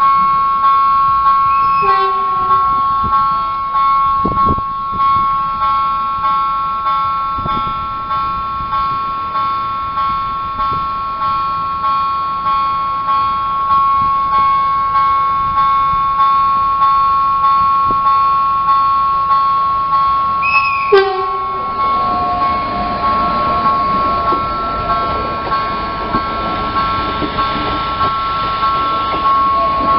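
Electronic warning bell of a railway level crossing ringing steadily, a two-note electronic tone pulsing about one and a half times a second. About two-thirds of the way in there is a brief, loud tone that drops in pitch. After that a Rodalies electric commuter train's rumble builds as it passes, with the bell still ringing over it.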